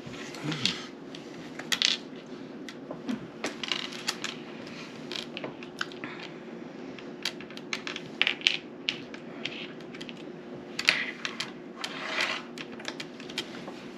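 Small board-game pieces clicking and clattering as they are handled and set down on a table, in irregular clusters of sharp clicks, over a steady low hum.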